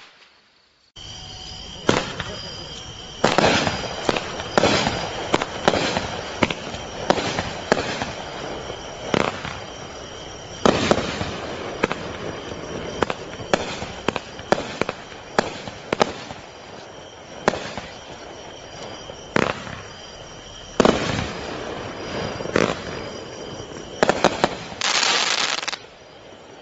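Consumer firework cake firing a long string of sharp reports, roughly one a second and irregular, beginning about a second in. Near the end comes one longer hissing burst.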